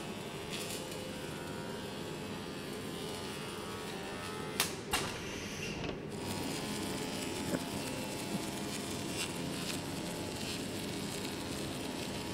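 SR-LWL-F2500 laser welding line running while it welds copper tubes to an absorber plate: a steady whirring machine noise, with two sharp clicks a little before halfway.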